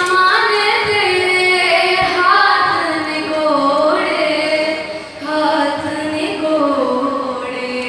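Solo female voice singing into a stage microphone, holding long notes that slide between pitches, with a short break for breath about five seconds in.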